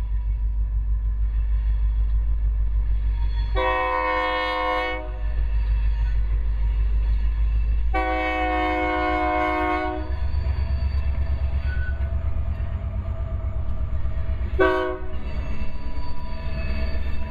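Union Pacific diesel locomotive's multi-chime air horn sounding two long blasts and then a short one, the long-long-short opening of a grade-crossing signal. A heavy low rumble of wind buffeting the microphone and the train runs under it.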